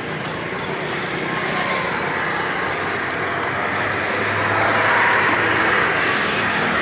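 Street traffic with a motor scooter riding past close by, its engine growing louder to a peak about five seconds in.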